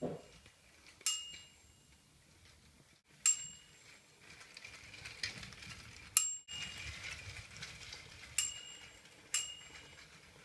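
Clockwork Lionel Mickey and Minnie Mouse hand car running on tinplate O gauge track with a faint whirr from its wind-up motor and wheels, while a small bell dings five times at uneven intervals, each strike ringing on briefly.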